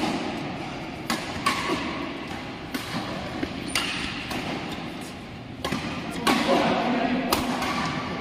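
Badminton racket strings striking a shuttlecock during a doubles rally: about seven sharp, irregularly spaced hits, ringing out in a large sports hall.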